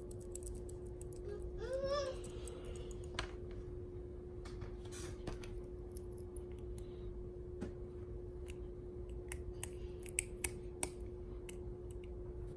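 Scattered small clicks and taps of a screwdriver and wire being worked into the screw terminal block of a small relay module board, with a steady hum underneath.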